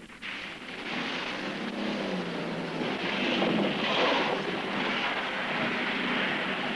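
Vans driving over wet desert ground, their engines humming under a rushing noise that swells as one van comes close, loudest about four seconds in.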